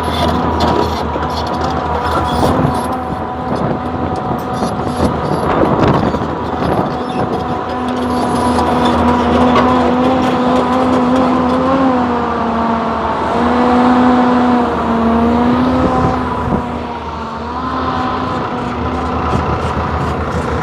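Hyundai Robex 480LC-9S excavator working: its diesel engine runs steadily under a hydraulic whine that comes and goes and bends in pitch, strongest in the second half. Scattered clatter and knocks in the first third.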